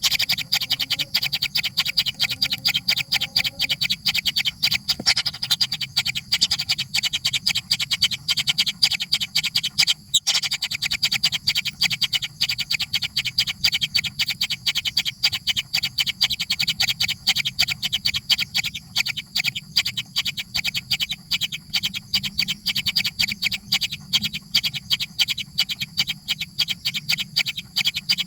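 Baby birds calling to be fed: a fast, steady string of short high-pitched cheeps, several a second, that keeps going without a break.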